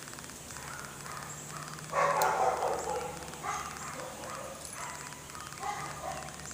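A dog barking: one loud bark about two seconds in, then several shorter, quieter barks.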